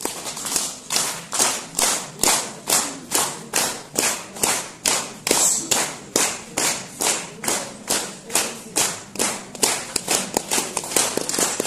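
Hands clapping in a steady, even rhythm, about two and a half claps a second.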